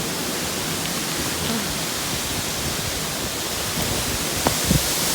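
Steady rushing of a waterfall, with a short knock about four and a half seconds in.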